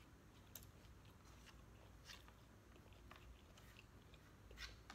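Faint close-up chewing of sisig, chopped pork ear with rice, with a few short clicks from the mouth scattered through, the clearest near the end.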